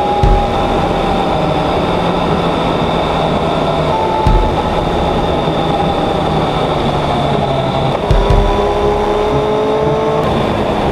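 Motorcycle engine accelerating through the gears with wind rush over the fairing. The pitch climbs steadily in each gear and drops at three up-shifts: about a quarter second in, about four seconds in and about eight seconds in.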